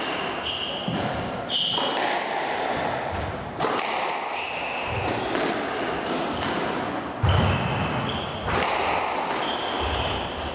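Squash rally: a quick, irregular run of sharp cracks as the ball is struck by rackets and hits the walls, with short squeaks of shoes on the wooden court floor. A heavier thump about seven seconds in is the loudest sound.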